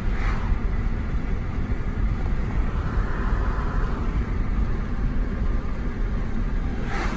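Road and engine noise inside a Honda Accord's cabin while driving: a steady low rumble, with the whoosh of an oncoming car passing just after the start and another near the end.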